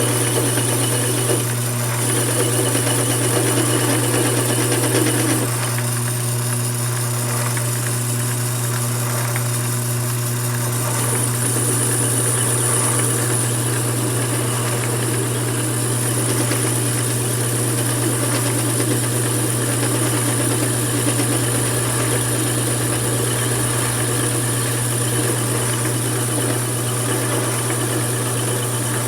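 Mini lathe running steadily, with a constant motor hum and a thin high whine. The tone shifts slightly about five seconds in and again around eleven seconds.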